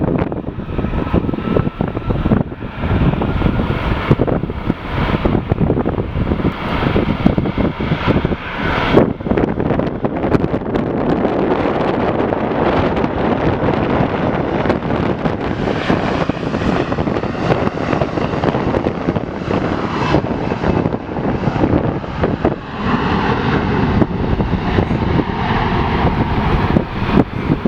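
Airbus A330 jet engines at high power as the airliner takes off, a steady jet noise with faint whining tones, mixed with wind buffeting on the microphone.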